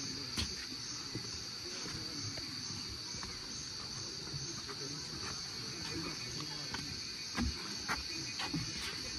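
Steady, high-pitched buzz of an insect chorus, pulsing evenly about two or three times a second, with a few short knocks.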